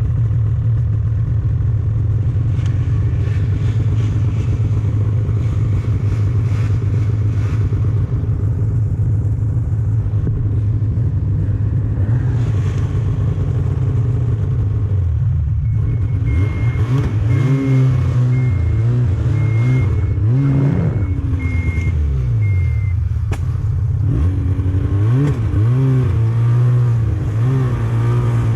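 Snowmobile engine running at a steady pitch, then from about halfway through the throttle is worked, the engine note rising and falling again and again. A short high beep repeats for several seconds in the middle.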